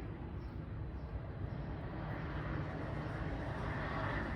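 A steady low outdoor rumble that swells slightly toward the end, like distant traffic or an aircraft passing.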